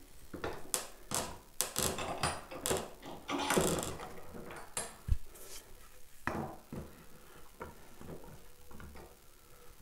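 A run of light wooden knocks and scrapes, densest in the first few seconds, with a duller thump about five seconds in, as a guitar neck and a small wooden block are handled and set in a bench vise.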